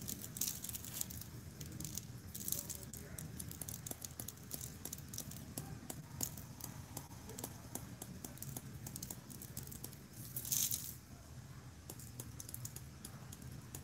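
Faint rattling of glitter shaken from a small clear plastic container onto a tumbler: many light ticks, with one short hissy pour about two-thirds of the way through, over a faint steady low hum.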